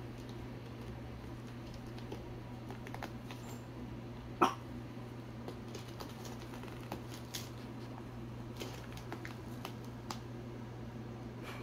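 One short, sharp animal huff or snort about four seconds in, over a steady low hum and faint scattered light clicks as a cat paws at a fabric pet hammock.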